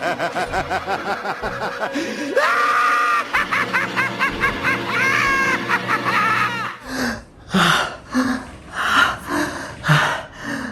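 Exaggerated, cartoonish laughing and snickering over music, breaking near the end into a string of short separate laughs.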